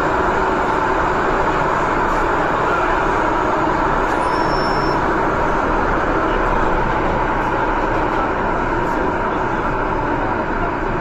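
MTR M-Train electric multiple unit running through a tunnel: a loud, steady rumble and rush of wheels on rails, easing slightly near the end.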